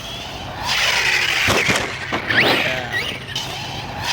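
Arrma Outcast 1/8 stunt truck's brushless electric motor whining up and down in pitch as the throttle is worked, over a rushing noise, with a couple of sharp knocks about a second and a half in.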